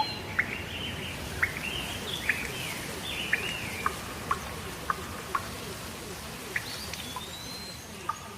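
Rain ambience: a steady hiss of rain with birds singing over it, whistled notes gliding up and down and short sharp chirps scattered through.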